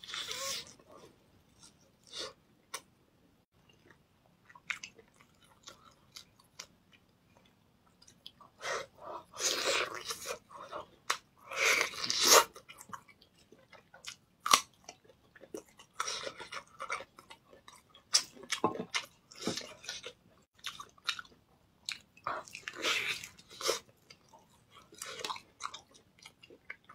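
A person biting and chewing meat off a large roasted bone, close to the microphone: a few sparse mouth clicks at first, then repeated bursts of chewing and biting from about nine seconds on.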